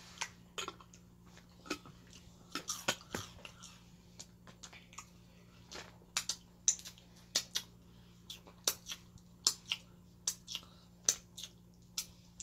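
Close-up eating sounds: chewing, with wet lip smacks and finger-licking pops coming as a string of sharp, irregular clicks, thickest about two to three seconds in and again in the second half.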